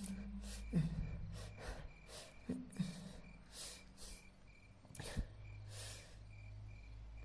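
Crickets chirping in a steady pulse over a low hum, with repeated short breathy rushes of noise throughout.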